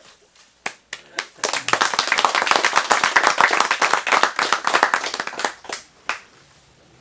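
A small group of people clapping: a few scattered claps, then about four seconds of dense applause that thins out and ends with a single last clap about six seconds in.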